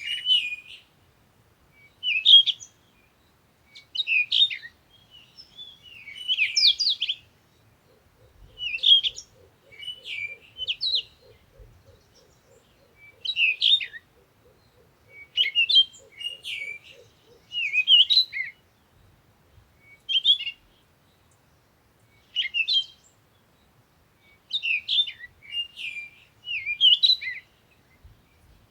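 Songbirds chirping in short bursts of quick, high chirps, a burst every second or two.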